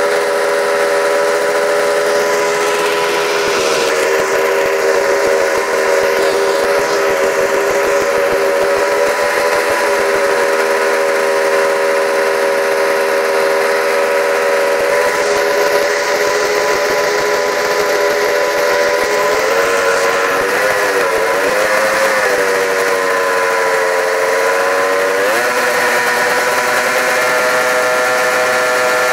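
Two-cylinder two-stroke snowmobile engine running steadily, with its coolant hoses looped and no cooler, the head near 300 degrees. Its pitch wavers about 20 seconds in and rises briefly about 25 seconds in.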